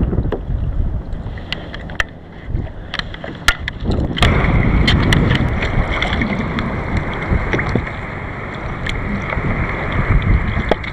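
Water sloshing against a fishing kayak on the open ocean, with wind on the microphone and scattered small clicks of gear being handled; the wash gets louder about four seconds in.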